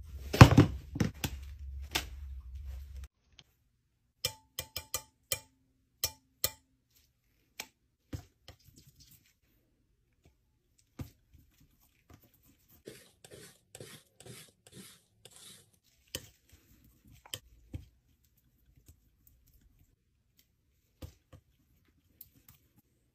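Palette knife tapping and scraping against a paint-caked palette and paper as paint is mixed and spread: scattered sharp taps, with a run of quick scraping strokes a little past the middle.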